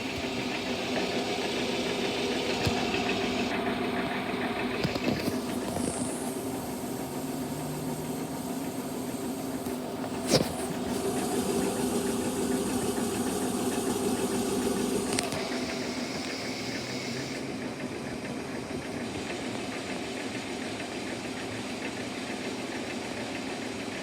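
Washing machines running, a steady motor hum with a rattly texture that changes several times, as if moving from one machine to the next, and a sharp click about ten seconds in.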